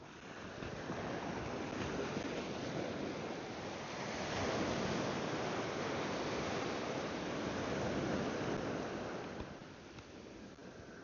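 Ocean surf: a wave breaking and washing up the beach, swelling during the first seconds and falling away about nine and a half seconds in.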